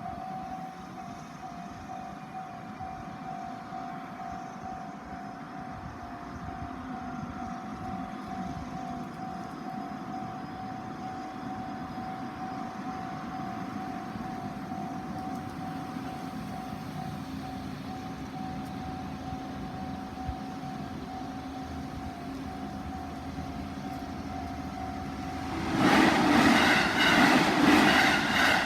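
Japanese level-crossing alarm ringing steadily on the JR Tokaido Main Line. About three seconds before the end, a train passes over the crossing, loud, with a rapid rhythmic clatter of wheels over the rail joints.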